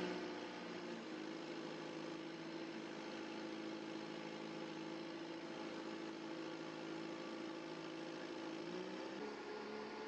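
John Deere 510D backhoe loader's turbocharged diesel engine running at a steady speed, its pitch dropping slightly near the end.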